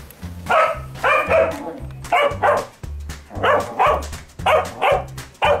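A dog barks over and over, mostly in quick pairs, over background music with a steady bass beat.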